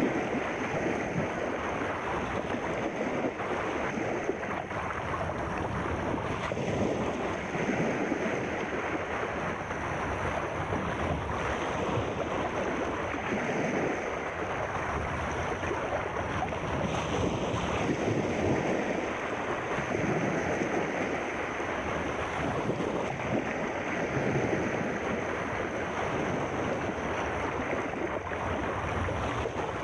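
Sea surf washing in, a steady rushing that swells and eases slowly.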